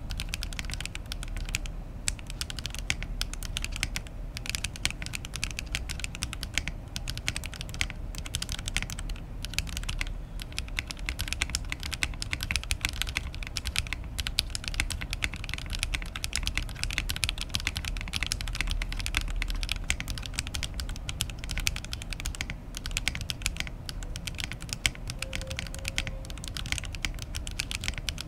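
Steady, continuous typing on an Oasis 65 mechanical keyboard with Ghost Judges PBT keycaps and no foam inside the case: a dense run of keystroke clicks without pauses. The typist hears it as clean and not very echoing, though hard strokes show some hollowness inside the case.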